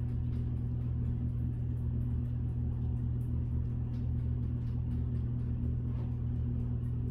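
Steady low electrical hum, like a motor running, unchanging in pitch and level.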